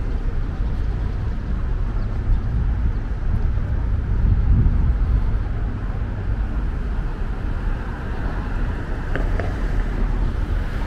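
City street traffic: cars passing with a steady low rumble, swelling slightly about four seconds in.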